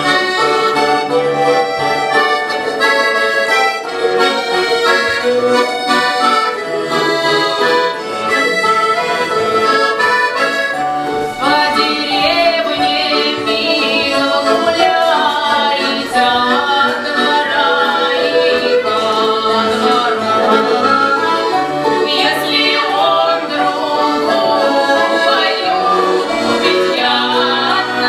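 Accordion playing a lively Russian folk tune, joined about eleven seconds in by folk-style singing voices.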